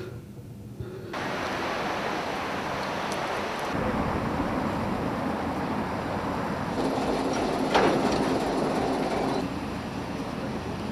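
Steady rushing noise of a large fuel fire burning, changing abruptly from shot to shot, with one brief louder burst about eight seconds in.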